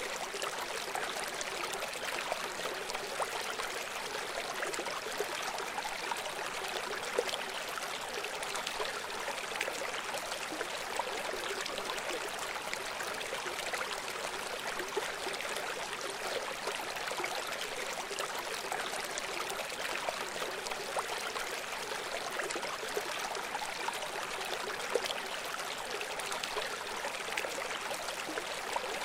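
River water flowing: a steady rushing wash with little low rumble.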